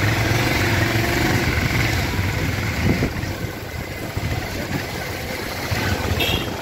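An engine running with a steady low hum that eases after about three seconds, with a short knock about three seconds in.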